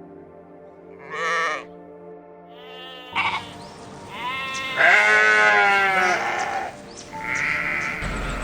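Bleating livestock giving several wavering calls over background music: a call about a second in, a short one near three seconds, a long loud call in the middle, and a shorter one near the end.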